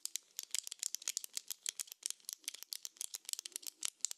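Two pens drummed on a hard surface: a quick, uneven run of sharp taps, about ten a second.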